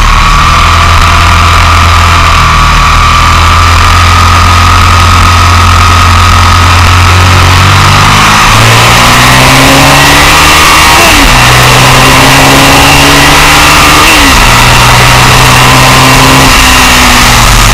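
Motorcycle engine at speed under wind noise, heard from on board. It holds a steady note at first, then about eight seconds in it starts pulling harder, the pitch rising through the gears with two quick drops at upshifts about three seconds apart, easing slightly near the end.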